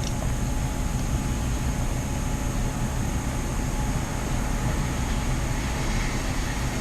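Steady background noise, an even hum and hiss with no distinct events.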